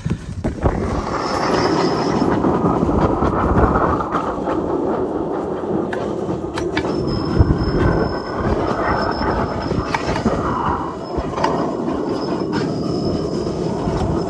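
A heating tool runs with a loud, steady blowing rush while warming butyl tape for a gutter repair. It switches on abruptly at the start, with a faint high whine above the rush.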